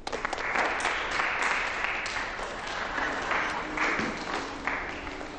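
A small group of people clapping in welcome, the applause thinning out toward the end.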